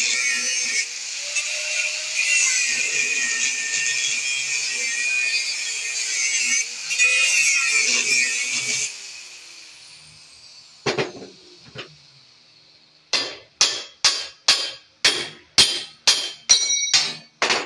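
Angle grinder with a cut-off wheel cutting through a steel bracket on a trailer axle, then switched off and winding down with a falling whine. In the last few seconds, about a dozen sharp metal strikes, two or three a second, knock the cut piece loose.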